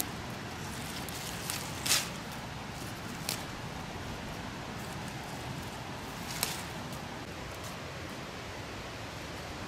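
Steady outdoor hiss with four brief, sharp rustles of nettle leaves, the loudest about two seconds in.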